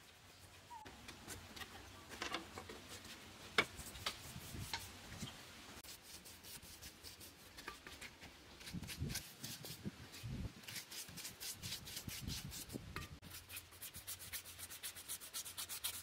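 Hand work on bamboo: rubbing and scraping strokes with a small tool or brush, scattered clicks and taps at first, then a fast, even run of short strokes, about five a second, from about ten seconds in.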